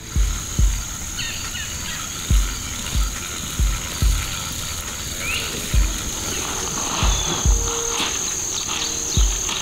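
Field insects trilling in one steady, unbroken high note, with fainter chirps beneath, over deep low thumps of a music beat.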